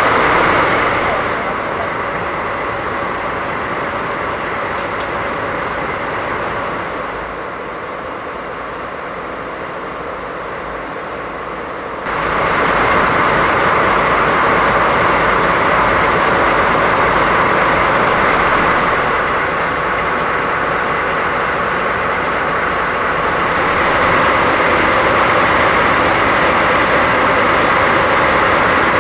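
JNR Class DD51 twin-engine diesel-hydraulic locomotives running steadily at close range. The loudness drops early on and jumps up sharply about twelve seconds in.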